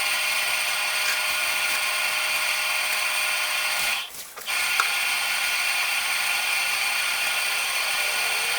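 Semi-automatic washing machine running with a steady mechanical whir and a hum, briefly cutting out about four seconds in.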